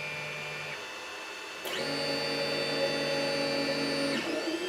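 Sunlu S8 3D printer's stepper motors whining in a steady tone as the print head and bed move at the start of a print, for about two and a half seconds from just under two seconds in. A fainter steady hum stops under a second in.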